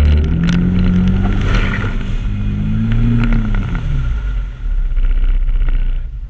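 A Can-Am ATV engine revs up and eases off twice as the machine pushes through a deep mud puddle, with water splashing around it. The engine note drops back near the end.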